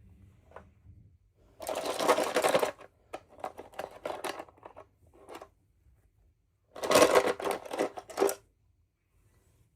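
Small plastic toy packaging and parts being handled, giving rapid clicking and crackling in two spells, one a couple of seconds in and one near the end, with scattered clicks between.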